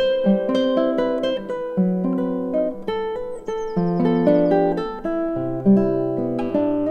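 Music: plucked acoustic guitar playing a melody over held chords, with notes ringing on.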